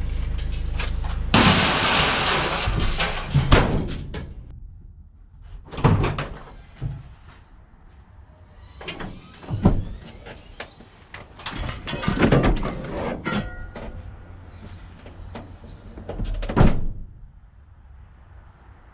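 Van doors being opened and shut while scrap is handled: a steady low rumble at first, then a rush of noise and about five loud bangs spaced a few seconds apart.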